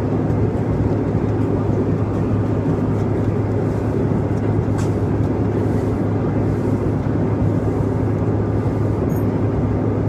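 Steady airliner cabin drone from the engines and airflow, a low rumble with a constant hum. Under it, hands rub softly over a paper napkin on the tray table.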